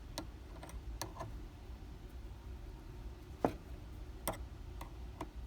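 Scattered light metallic clicks and ticks as a wire wind-up hose clamp (DIN N262 style) is wound around a hose, the loudest click about three and a half seconds in.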